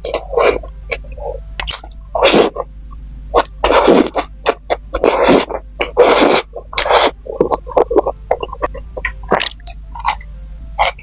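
Close-miked eating sounds: a run of short wet mouth and chewing noises, with several louder noisy bursts of about half a second each, scattered through.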